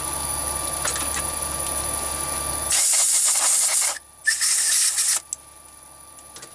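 Chinese mini lathe running with a steady motor hum. About three seconds in come two loud hissing sprays, each about a second long, aimed at the workpiece while an 8mm thread is being tapped. After them the hum is much quieter.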